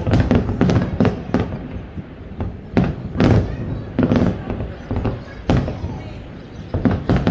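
Aerial fireworks exploding, about a dozen sharp bangs at irregular intervals with a low booming rumble between them.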